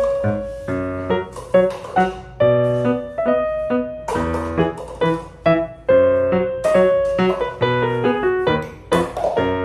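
Background music: a piano playing a lively melody with chords, notes struck several times a second.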